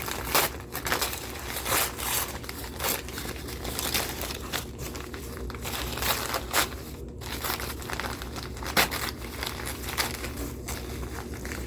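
Packaging being handled while a parcel is unpacked: irregular crinkling and rustling, with some tearing.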